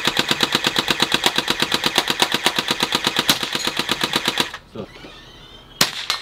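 Replica AK-style BB gun firing full-auto, a fast even stream of about ten shots a second that stops about four and a half seconds in. A single shot follows near the end.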